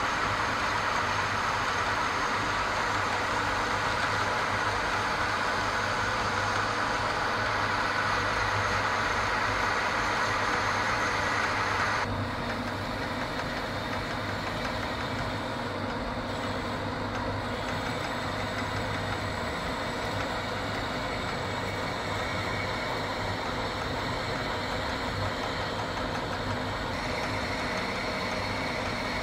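Metal lathe running with a steady motor hum while a cutting tool turns down a spinning metal workpiece, a continuous hiss of cutting over the hum. About twelve seconds in the sound drops abruptly to a quieter lathe hum, with a tool held in the tailstock now cutting into the end of the part.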